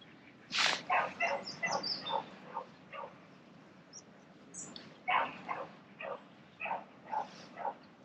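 A dog barking over and over in two runs of quick barks, about three a second, after a brief rush of noise about half a second in.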